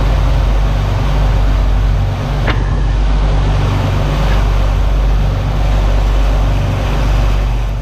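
Sportfishing boat's engines running steadily under way, a deep drone under the rushing hiss of the churning wake. A single sharp click comes about two and a half seconds in.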